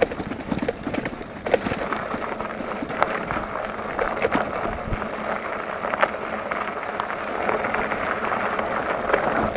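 Tesgo Strength fat-tyre e-bike rolling over a dirt and gravel lane: a steady rush of tyre and road noise, broken by frequent clicks and knocks as the bike rattles over bumps.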